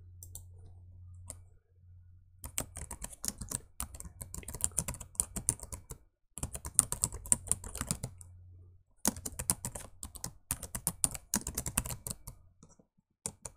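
Computer keyboard being typed on in quick runs of keystrokes, starting about two seconds in, with short breaks around six and nine seconds. A faint low hum sits underneath for the first two-thirds.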